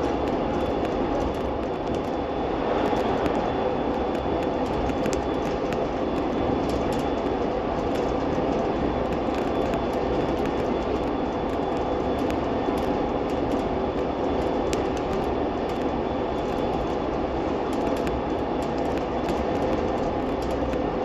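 PHX Sky Train, a driverless rubber-tyred people mover, running at steady speed on its concrete guideway, heard from inside the car. A constant rumble with a few faint, steady whining tones over it.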